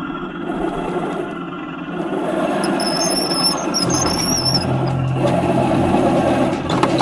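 Radio-controlled 1/16 scale Heng Long Leopard 2A6 tank running, with electric drive motor and gearbox noise and track clatter as it crawls over a stone ledge. A low steady drone comes in about four seconds in as the tank tips down onto the gravel.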